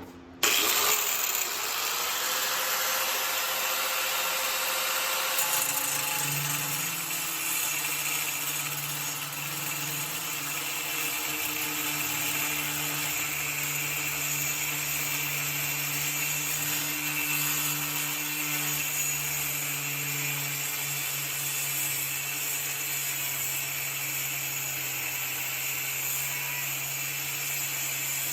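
Handheld electric grinder starting about half a second in, spinning up, then running steadily while grinding the welded steel of the homemade tools.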